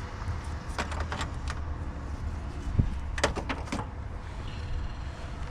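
Scattered sharp clicks and clinks of hand tools and parts being handled under a car's hood, in a few quick groups, over a steady low hum.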